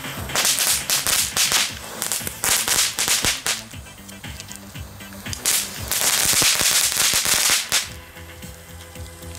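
Small F1 'Meteorite' ground fireworks going off in three bursts of rapid crackling and hissing, the longest about halfway through, over background music.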